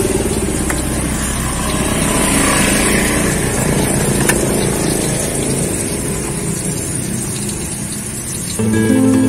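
A motor vehicle engine running steadily, with a few light clicks. Acoustic guitar background music comes in near the end.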